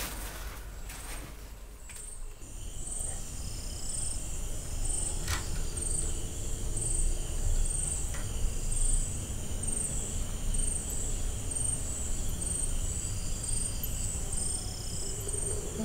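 Night insects chirping in a steady high-pitched rhythm, a little more than once a second, over a low steady rumble.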